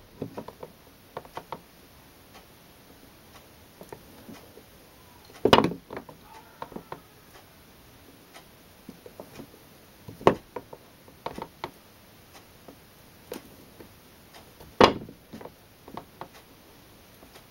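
Bar of handmade soap being slid and turned on a wooden soap planer, shaving against its blade: scattered light ticks and taps of the bar on the wooden board, with three louder knocks spaced about four to five seconds apart.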